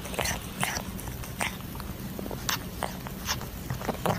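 A cat biting and licking at a catnip ball on a stick: small irregular crunchy clicks, a few a second, over a low steady hum.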